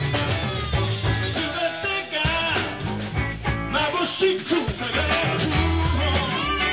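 A live band with drums, bass, electric guitars, keyboards and alto saxophone playing an upbeat song.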